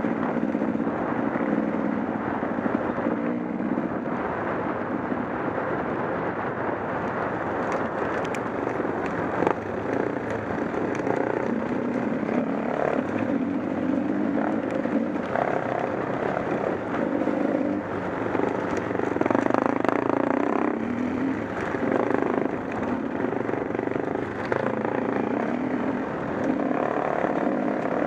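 Dual-sport motorcycle engine running on a rough dirt road, its pitch rising and falling every few seconds with the throttle.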